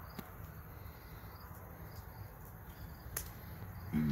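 Crickets chirping faintly and repeatedly in the background, with a single sharp click about three seconds in.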